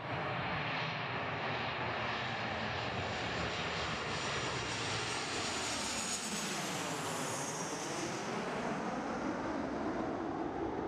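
Airplane engines loud as the aircraft flies low overhead. The whine sweeps down in pitch about seven seconds in, as it passes.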